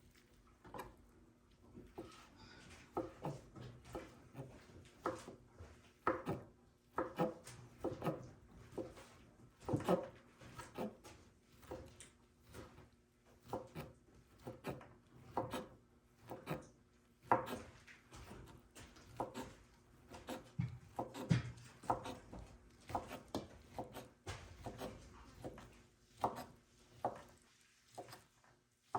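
Kitchen knife cutting food on a wooden cutting board: irregular knocks and taps, about one or two a second.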